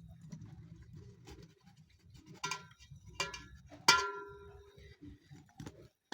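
Kitchenware clinking three times over a low steady background noise; the third clink is the loudest and rings on for about a second.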